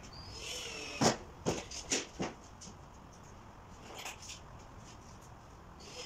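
Hand-work noises on the cage roof: a faint squeaky whine, then a loud sharp click about a second in, followed by a few lighter clicks and taps.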